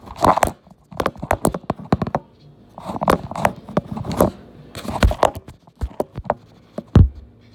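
Quick, irregular clicks and taps of seasoning containers being handled and shaken over a stainless steel mixing bowl, with short rustles. A heavier knock comes about seven seconds in.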